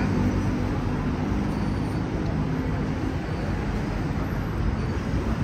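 Steady city street traffic: vehicle engines running and tyres on the road, with a low engine hum that fades out over the first couple of seconds.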